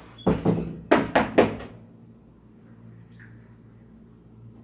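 Knocking on a door: several sharp knocks in the first second and a half, then only a low steady hum.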